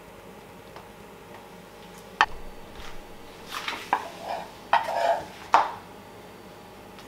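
A metal spoon clinking and scraping against a pan of caramel: one sharp knock about two seconds in, then a few more clinks with short scrapes over the next few seconds.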